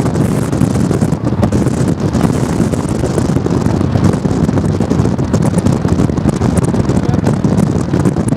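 Strong wind buffeting the microphone: a loud, steady low rumble that flutters constantly.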